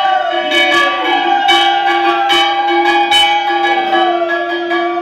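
Bell ringing continuously with rapid repeated strikes over sustained ringing tones, one of which slowly slides down in pitch.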